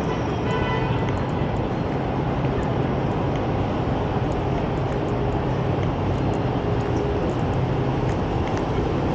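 Steady city street traffic on wet pavement: a continuous wash of vehicles and tyres passing, with a brief faint tone about half a second in.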